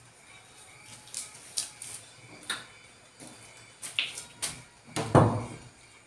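Handling noises around a tube of massage cream: scattered light clicks and taps, with a louder thump about five seconds in.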